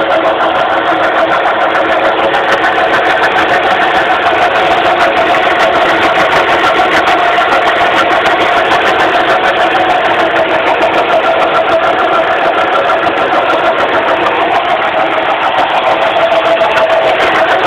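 2006 Suzuki Forenza engine running steadily with a loud, constant hum that the owner puts down to a failing power steering pump.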